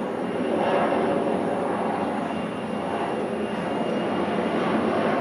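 Twin turbofan engines of an Embraer E-Jet airliner on landing approach, a steady jet rush passing low overhead and swelling louder about a second in and again near the end.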